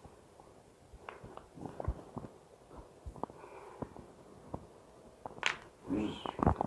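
A person's joints being cracked by hand in a chiropractic-style manipulation: a string of small crunchy cracks and pops, with a sharper click about five and a half seconds in.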